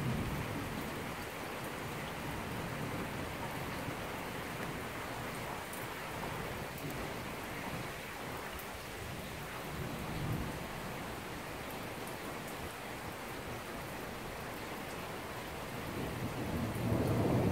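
Heavy rain falling steadily on a street during a thunderstorm, with thunder rumbling low behind it. A louder roll of thunder builds near the end.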